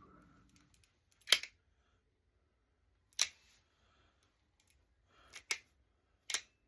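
Sharp metallic clicks and snaps from a Taurus .38 Special revolver being handled: five in all, the loudest about a second in and a quick pair near the end.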